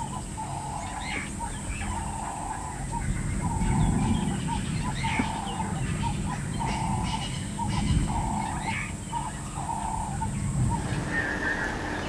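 Outdoor wildlife ambience: an animal calling in short repeated notes roughly once a second, with scattered bird chirps and a steady high insect whine. Near the end the whine stops and a different, higher buzzing call takes over.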